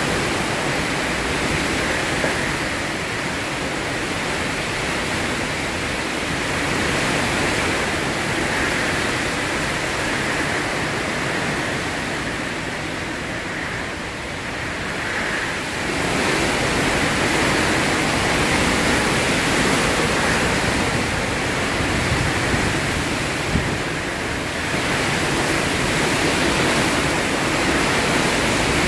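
Hurricane wind and heavy rain: a steady rushing noise that eases a little about halfway through, then swells again in a stronger gust.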